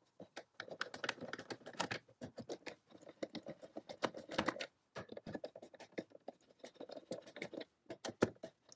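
Hand screwdriver backing out the lid screws of a plastic inlet box: a faint, irregular run of small clicks and scratches as the driver tip and screws turn in the plastic.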